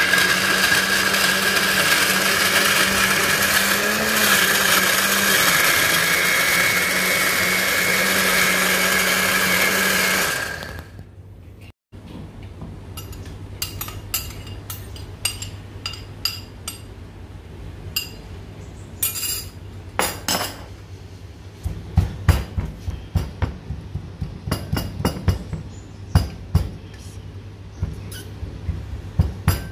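Electric blender running steadily for about ten seconds, then switched off. After a short gap come scattered sharp taps, turning near the end into a quicker run of knocks.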